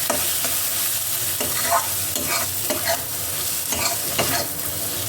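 A spatula stirring and scraping taro-stolon (kochur loti) curry in a pan over the flame, several scraping strokes over a steady sizzle of the spices frying.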